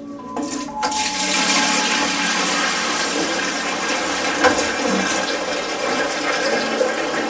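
Liquid gushing into a wooden barrel. It starts about a second in and keeps up as a steady rush.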